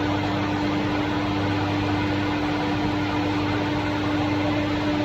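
Woodworking surface planer running with a steady mechanical hum and whir.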